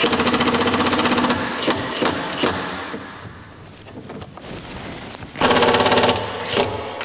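Impact driver driving a long wood screw into a drawer slide and cabinet face frame: a fast, even hammering for about a second and a half, then a few knocks, then a second shorter burst of hammering near the end as the screw is run home.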